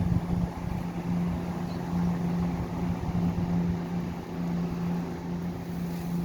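Diesel train's engine idling with a steady low hum and rumble.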